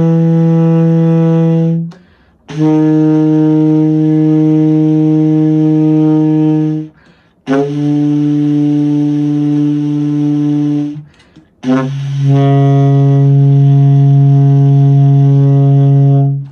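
Saxophone playing a low-register long-tone exercise: four sustained low notes, each held about four seconds with a short breath between, each a step lower in pitch than the last, descending toward low B flat. The exercise builds embouchure and jaw strength and develops tone.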